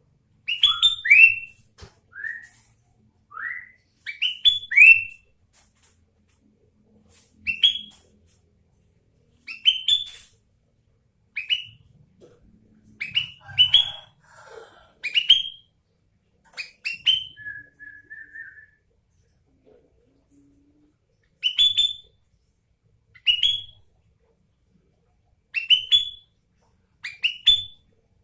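Sooty-headed bulbul singing: short, bright, sweeping whistled notes in quick clusters every second or two, with a pause of a few seconds past the middle.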